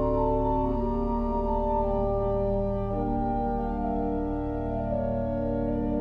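Steinmeyer pipe organ played on flute stops: held chords moving slowly from one to the next over steady low bass notes.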